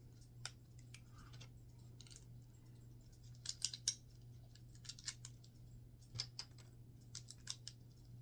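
Plastic Lego bricks clicking and clattering as pieces are handled and fitted or pulled apart: scattered sharp clicks, with a quick run of several about three and a half seconds in. A steady low hum runs underneath.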